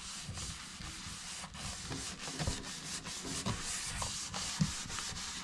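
A brush scrubbing a steel kitchen sink coated with baking soda, in quick, steady back-and-forth strokes.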